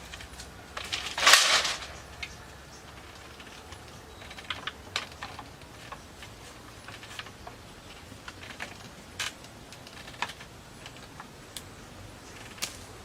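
Irregular light knocks and clicks of bamboo being handled and worked by hand, with one louder rush of noise about a second in.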